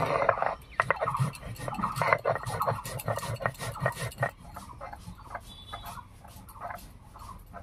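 Stone roller grinding cashews and poppy seeds on a flat stone grinding slab (sil-nora), pushed back and forth in quick repeated strokes of stone grating on stone. The strokes are louder for the first four seconds or so and softer after that.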